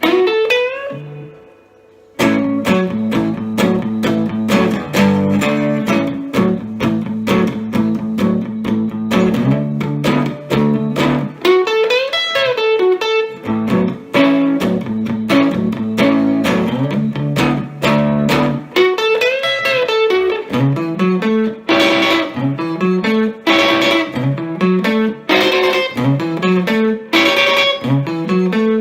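Epiphone Casino electric guitar played through a Vox AC15C1X valve amp's Top Boost channel. A short note at the very start, then after about two seconds a continuous run of picked single-note riffs with string bends, turning into a repeated rising figure near the end.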